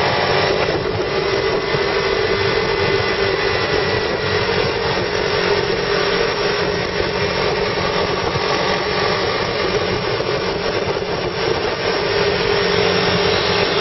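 Car driving with its transmission stuck in third gear: the engine runs steadily under road and tyre noise, heard from inside the cabin.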